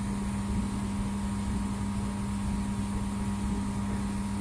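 Laser welding machine running with a steady, even hum.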